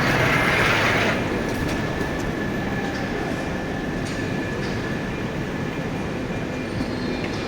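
Train running in a railway station: a steady rumbling din with a thin, steady high tone, opening with a hiss in the first second.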